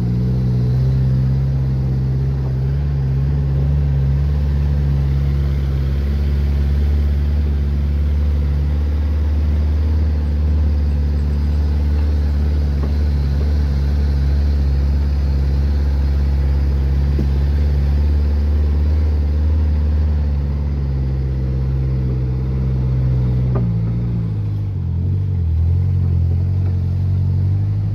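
A motor vehicle's engine running steadily, heard from on board while it drives along a dirt track. Its note drops for a few seconds shortly before the end.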